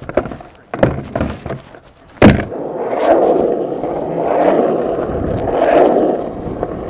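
Skateboard handled with a couple of light knocks, then dropped onto the street with a sharp clack about two seconds in. Its wheels then roll steadily over the asphalt as the rider pushes along.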